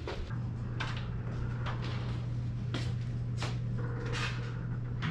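Hotel room door and its latch being handled: five short knocks and clicks at irregular spacing over a steady low hum.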